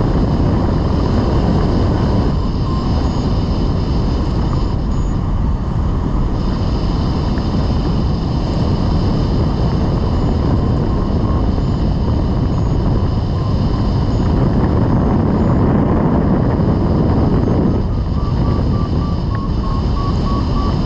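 Steady rush of airflow over the microphone of a camera on a rigid-wing hang glider in flight, with faint short beeps that rise slightly in pitch near the end.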